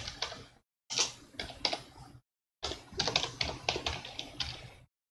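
Keystrokes on a computer keyboard, typing in short runs of rapid clicks with a few brief silent pauses between them.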